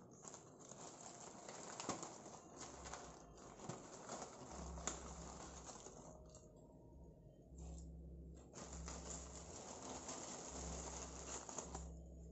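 Plastic packet of dried noodles crinkling and rustling as bundles of noodles are pulled out by hand, with irregular small crackles. A low hum comes and goes underneath from about halfway through.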